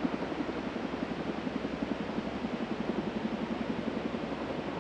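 Army CH-47 Chinook tandem-rotor helicopter in flight, its rotor blades beating in a rapid, steady pulse.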